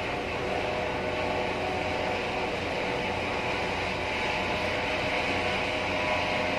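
Helicopter lifting off a ship's deck and climbing away, its engine and rotor making a steady, even noise.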